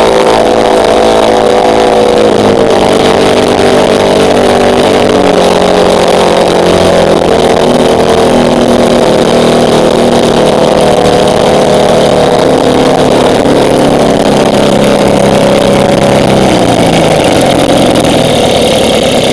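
A 30-cubic-inch Bourke engine, a two-stroke opposed twin, running loudly on a test stand after starting cleanly. Its speed drifts slowly down through the run, and it turns rougher near the end.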